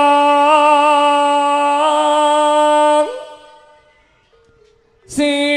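Javanese jaranan music with a single melodic line and no drums. It holds one long, steady note that fades out about three seconds in, and after a moment of near silence another long note starts abruptly near the end.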